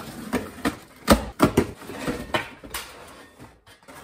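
Cardboard shipping box being torn open and a stainless steel rack taken out: rustling and ripping cardboard, then a run of sharp knocks and clatters as the metal is handled, the loudest about a second in.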